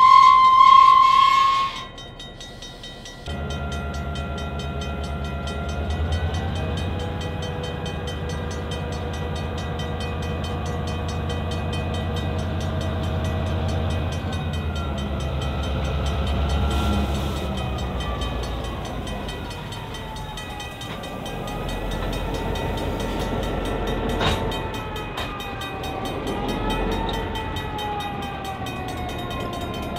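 Diesel locomotive horn on an EMD GP9 sounding and cutting off about two seconds in. Then the GP9's two-stroke diesel engine running as the locomotive rolls slowly past, with a whine that slides down and back up as it moves, and one sharp knock near the three-quarter mark.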